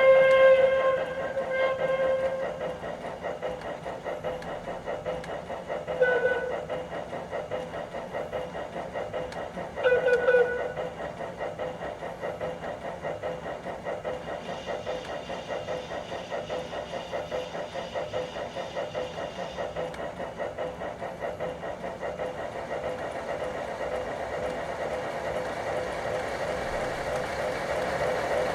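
Digitally sampled H. K. Porter steam locomotive sound from a model locomotive's sound decoder and speaker. A multi-tone steam whistle sounds at the start, then two short toots follow about six and ten seconds in. Under and after them runs an even rhythmic exhaust chuff, synchronised to the wheels.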